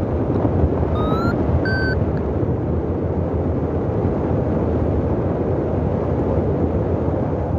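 Strong wind buffeting the microphone in flight under a paraglider, a steady loud rushing. About a second in come two short high-pitched beeps, the first rising slightly.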